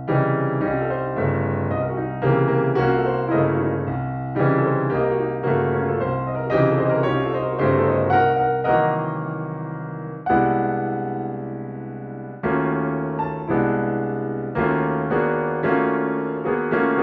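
Solo piano playing a rendering of an atonal march sketch: accented chords struck about once a second over repeated low notes, with faster figures in the upper part.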